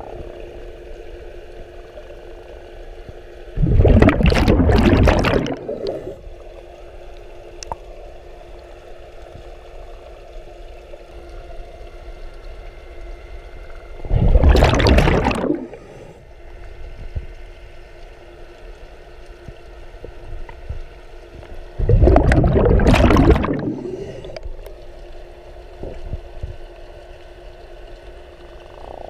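A scuba diver's exhaled breath bubbling out of the regulator three times, each burst about two seconds long and several seconds apart, recorded underwater by a head-mounted camera. Between breaths a steady underwater hum.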